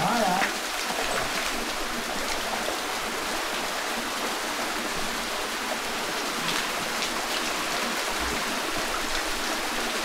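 Small waterfall pouring into a shallow rock pool: a steady rush of splashing water.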